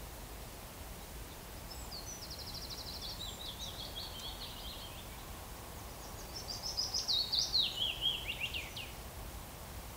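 A songbird singing two phrases, each a fast run of high notes falling in pitch, the second about six seconds in and louder. Under it, a steady low background noise.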